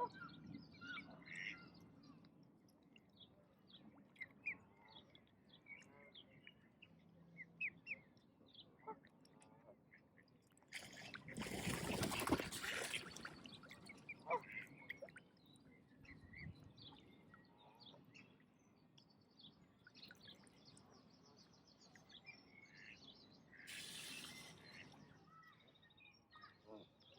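Faint outdoor bird sounds: ducks and small birds calling now and then in short chirps. Near the middle comes a louder rush of noise lasting about two seconds, and a shorter hiss follows near the end.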